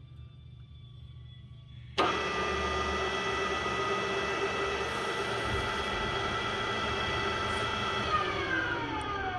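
Ooya RE2-1300A radial drill press starting up about two seconds in with a sudden whir and several steady gear whines from its spindle drive. It runs steadily, and near the end the whines glide down in pitch as the spindle winds down.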